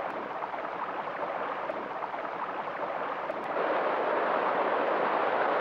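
River water rushing steadily, growing louder about three and a half seconds in as it becomes whitewater rapids pouring over and around boulders.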